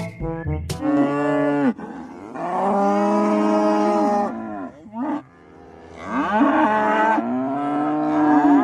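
Young cattle mooing: a short call about a second in, a long drawn-out moo from about two to four seconds, a brief call near five seconds, and another long moo from about six seconds on.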